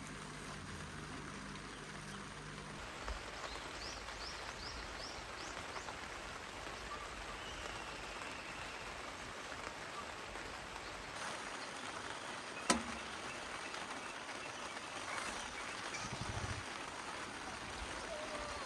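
Steady rain falling, an even hiss. A bird chirps a quick series of short notes a few seconds in, and there is one sharp click about halfway through.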